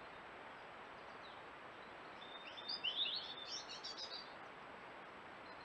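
A small songbird sings one quick phrase of high chirping notes about two seconds in, over a steady hiss.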